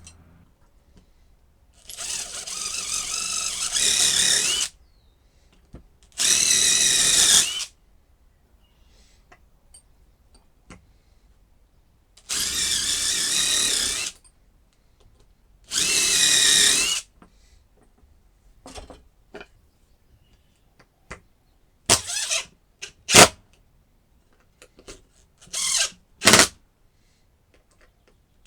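Power drill running in four short bursts of one to two and a half seconds each, followed by a string of brief clicks and short whirs.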